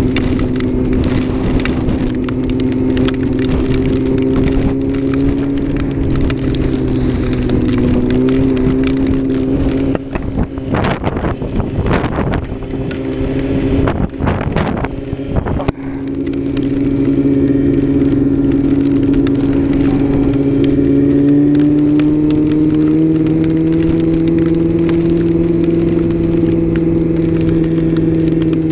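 Yamaha R6 sport bike's inline-four engine running at steady revs while riding. About ten seconds in its tone is broken for several seconds by choppy, flapping noise; then the engine steadies again and its pitch slowly rises as the bike picks up speed.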